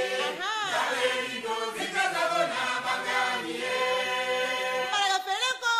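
Music soundtrack: a vocal chant sung by several voices together in long, sliding phrases, with a single higher voice taking over near the end.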